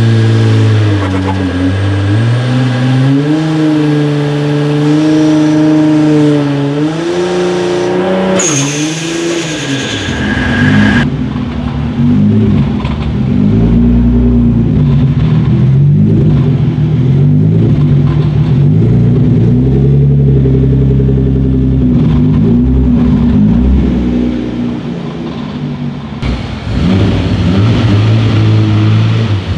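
Nissan R35 GT-R engine revving on a chassis dyno, its pitch rising and falling with a steady high whine over it. About eleven seconds in the sound changes abruptly to a duller, lower engine note that steps up and down in pitch.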